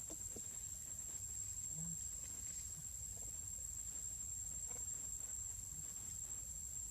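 Outdoor ambience: a steady high-pitched insect drone over a low rumble, with a few faint soft ticks.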